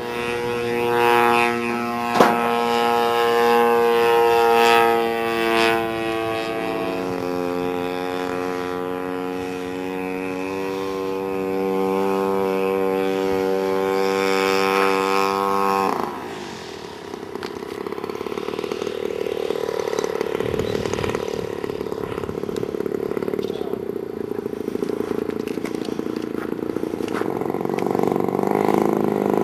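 Gas engine of a 1/3-scale RC Aeronca Champ running at a steady speed, dropping to a lower pitch about seven seconds in, then cutting off abruptly about halfway through. A softer, unpitched drone follows, with a faint engine tone coming back near the end.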